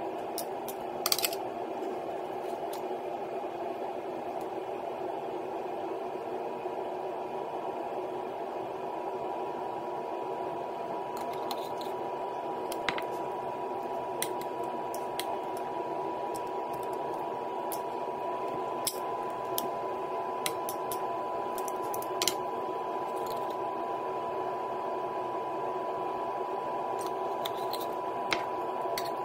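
Metal kitchen tongs clicking now and then against a stainless steel bowl, colander and plate as raw chicken wings are lifted out, over a steady hum with a thin steady tone in it.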